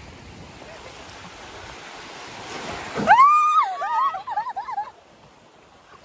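Rushing river water that swells over the first three seconds, then a loud, high yell from a person, rising sharply and held, breaking into wavering cries that stop about two seconds later.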